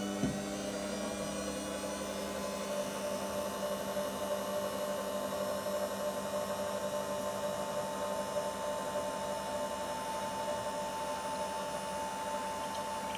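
JUlaVIE cold-press juicer running while it presses watermelon: a steady motor hum with a higher whine, its pitch rising and settling about a second in. A single click sounds just as it begins.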